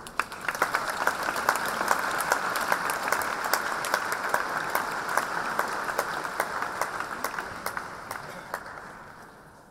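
Seated audience applauding, starting right after the speech ends and dying away near the end.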